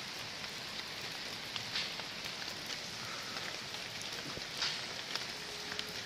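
Steady hiss of background noise with a few faint clicks scattered through it.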